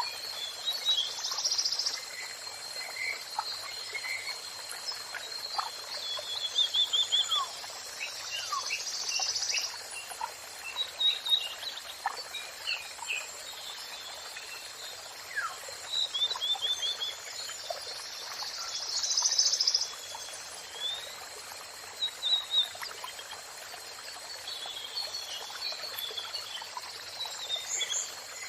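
Several songbirds singing: short chirps, whistled slurs and fast trills in bursts, over a steady rush of running water.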